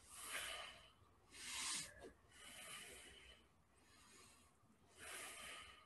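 A person breathing hard, four faint, airy breaths of about half a second each, from the effort of holding a plank.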